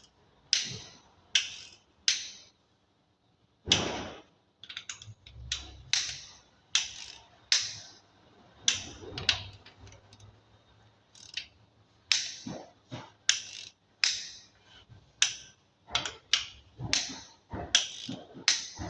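Socket wrench clicking as cylinder head bolts on a 3.5 V6 are tightened: sharp metallic clicks, roughly one a second and irregularly spaced, each with a short ring.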